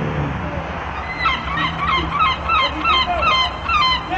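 Rapid run of gull cries, short harsh calls at about four a second, starting about a second in.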